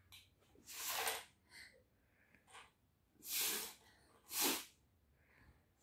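A toddler blowing short, hard puffs of breath through a straw: three strong blows and a few smaller puffs between them.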